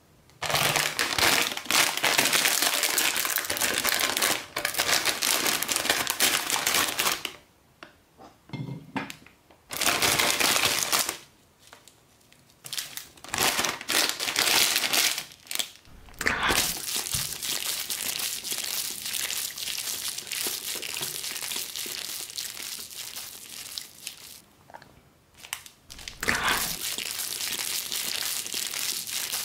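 Plastic instant-noodle packet crinkling and crumpling in the hands, in long bouts broken by a few short pauses.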